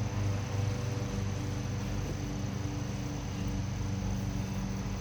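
Steady low hum under an even hiss, like a fan or other machine running in the background.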